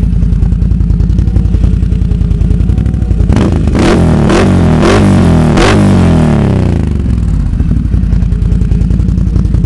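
ATV engine running through an HMF Penland Pro Series aftermarket exhaust. It idles with an even beat, is revved in about five quick blips from a little past three seconds in, and drops back to idle about seven seconds in.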